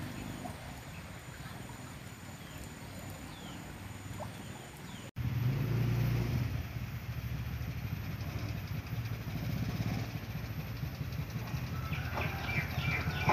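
Homemade mini jeep's 150 cc Honda Mega Pro single-cylinder motorcycle engine running as the jeep approaches, a steady low hum that gets louder after a cut about five seconds in.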